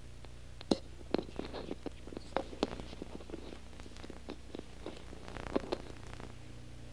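Room tone: a steady low hum with a scatter of short knocks and clicks, the sharpest about a second in, around two and a half seconds in, and again near five and a half seconds.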